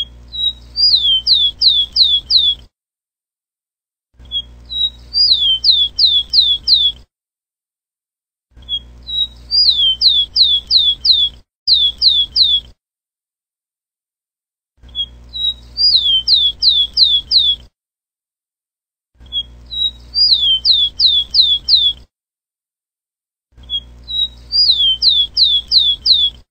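Rufous-collared sparrow (tico-tico) singing: each song is a short opening note followed by a quick run of five or six descending whistles, repeated about every four seconds.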